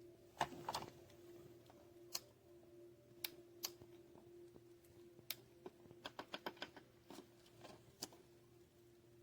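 Faint, scattered light clicks and taps of plastic parts being handled, with a quick run of about seven clicks a little after six seconds in, over a faint steady hum.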